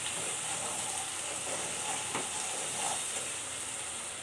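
Ground spice paste of cumin, ginger and chilli sizzling as it fries in oil in a steel kadai, stirred with a wooden spatula, at the stage of frying the masala well (koshano). A couple of faint clicks about two and three seconds in.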